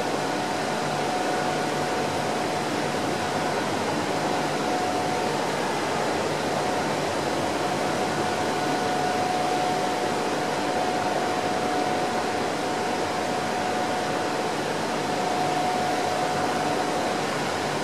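Steady mechanical hum and hiss of building machinery, with a thin steady whine that drops out near the end.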